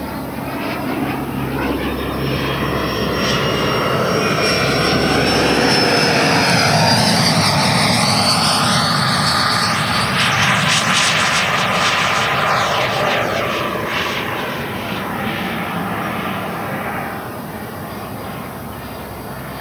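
Whine of a 100 mm WeMoTec Midi EVO electric ducted fan in a large RC jet flying past. It grows louder toward the middle, drops in pitch as the jet passes low, then fades as it climbs away.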